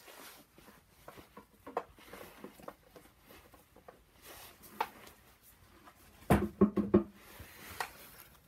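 Gloved hands handling tools and engine parts: scattered light clicks and taps, then a quick run of knocks about six and a half seconds in.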